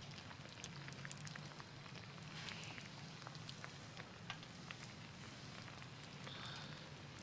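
Wood campfire crackling faintly, with scattered small pops and snaps over a soft hiss.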